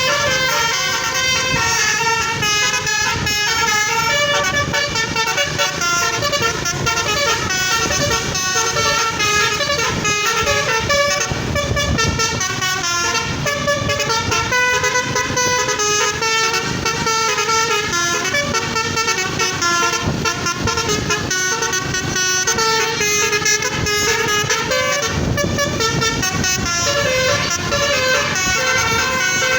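Indonesian bus 'telolet' multi-tone horn playing a tune, several horn notes sounding together and stepping quickly from pitch to pitch, loud and unbroken.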